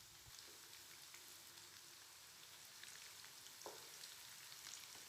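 Breadcrumb-coated chicken sticks deep-frying in hot oil: a faint, steady sizzle with scattered small crackles.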